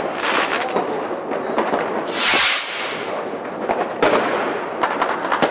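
Fireworks going off: steady crackling throughout, a loud hiss a little past two seconds in, and sharp bangs of bursting shells around four seconds in and several times near the end.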